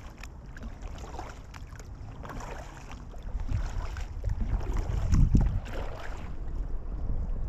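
Kayak paddle strokes: the blades dip and splash in calm river water about once a second. Under them is a low wind rumble on the microphone, which grows in the second half and is loudest a little after halfway.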